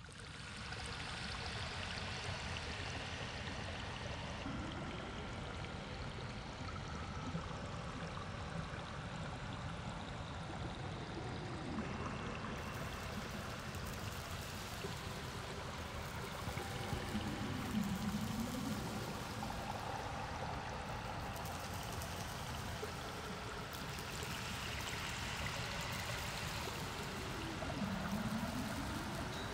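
Steady rush of flowing river water, with a low tone that dips and glides back up four times.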